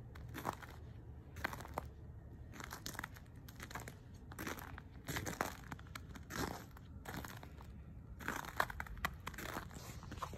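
Slow, uneven footsteps crunching on crusted, icy snow.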